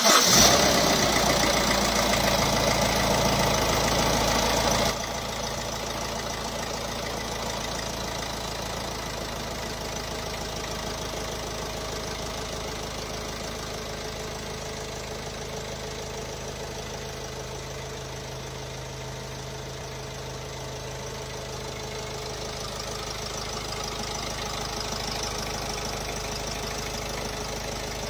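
Diesel engine (Honda) idling with a knocking sound, which the owner attributes to the timing. It is louder for about the first five seconds, then drops to a steady, quieter idle.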